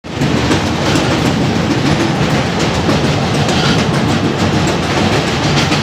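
Train running at speed across a steel truss railway bridge, heard from aboard: a loud, steady rumble of wheels on the rails with light clicking.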